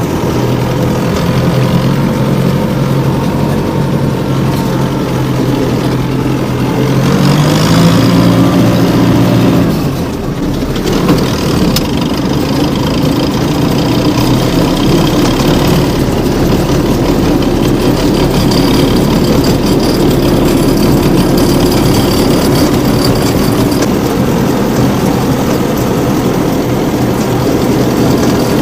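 Homemade mini tractor's engine running under way. It revs up about seven seconds in, drops back with a brief dip near ten seconds, then runs on steadily.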